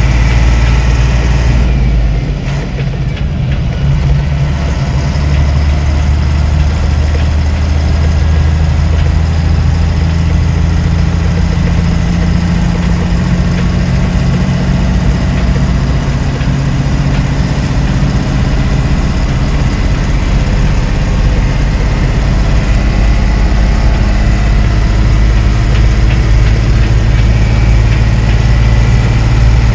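Diesel engine of a Kato mobile crane on a Mitsubishi chassis running while driving on the road, heard from inside the cab as a steady low drone. The level dips briefly about two seconds in, then runs on evenly.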